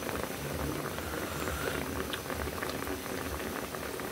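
Pot of whole fish in broth at a steady rolling boil, with bubbles popping and crackling without a break.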